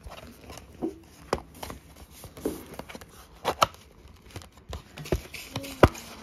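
Cardboard box and plastic wrapping being handled and opened: scattered taps, clicks and light crinkles, with a sharper knock near the end.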